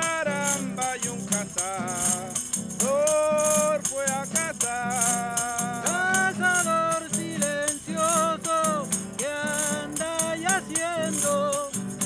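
A cueca played on acoustic guitar, with a small wooden hand rattle shaken in a steady rhythm and men singing long held notes.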